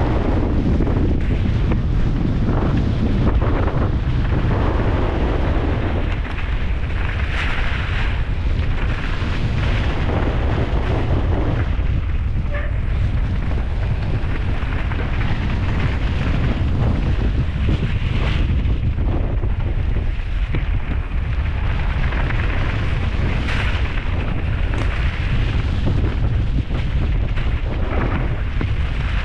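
Strong wind buffeting an action camera's microphone during a mountain bike descent, with irregular rattles and knocks from the bike over rough trail.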